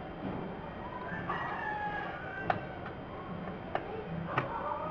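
A rooster crowing twice: one long crow about a second in, and another starting near the end. A few sharp clicks fall in between.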